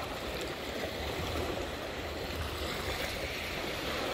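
Small waves washing in and out on a pebbly beach around a beached outrigger boat, a steady wash of water.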